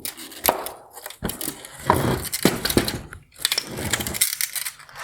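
Plastic parts of a Land Rover Defender LED headlight being worked loose by hand, a wire harness connector and a clipped-in LED board: rattly scraping and clicking with several sharp snaps.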